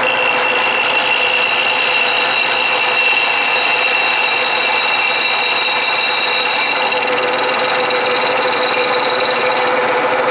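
Milling machine face-milling cast aluminium with a three-insert carbide cutter: a loud, steady cutting noise with a constant whine over it as the cutter takes a pass across the workpiece.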